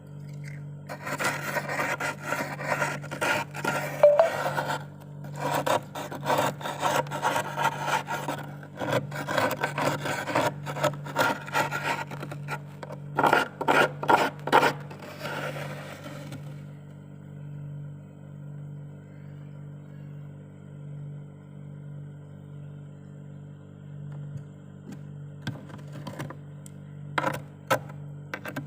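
A metal spoon scraping frost off a freezer's walls in quick rasping strokes, dense for the first half and then stopping, leaving a steady low hum with a few short scrapes near the end.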